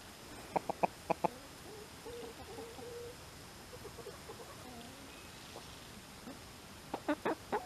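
Hens clucking softly while pecking at a maple leaf, with a quick run of sharp pecks about a second in and again near the end.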